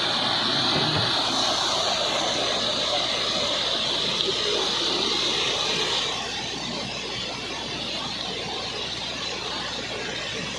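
Muddy floodwater rushing across a road in a steady roar of water, easing slightly about six seconds in.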